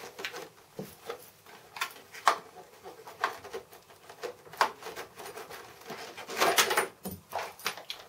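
A small box being slid out of a PC case's metal drive bay and handled: irregular knocks, scrapes and rustles, busiest about six and a half seconds in.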